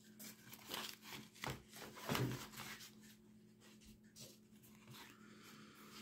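Faint rustling and a few light knocks of small packaging items and accessories being handled.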